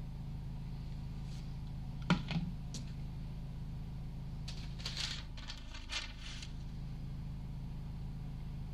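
Two light knocks about two seconds in as a clock insert is set down on a figured-maple block, then soft paper rustling as a paper template is laid over it, all over a steady low hum.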